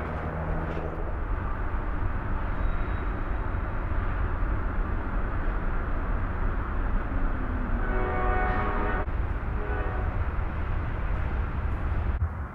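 Steady rumbling noise, with a horn sounding about eight seconds in: one blast of a little over a second that cuts off sharply, then a shorter, fainter one.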